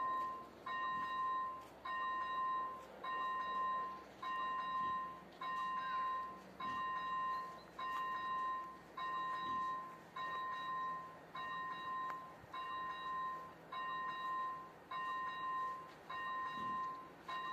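Czech level-crossing warning bell: an electronic bell tone struck about one and a half times a second, each stroke ringing at a steady pitch and fading. It is the crossing's active warning that the crossing is closed to road traffic.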